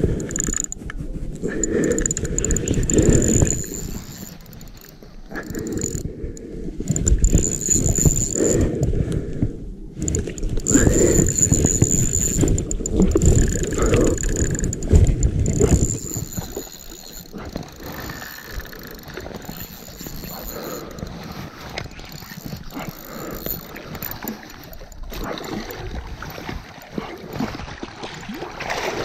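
Flowing river water with a low, uneven rumble on the microphone, heavier in the first half and easing about halfway through.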